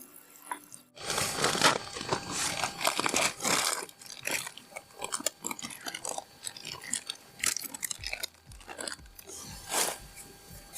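A person biting into and chewing crunchy food, a dense run of crisp crunches starting about a second in, with scattered single crunches after.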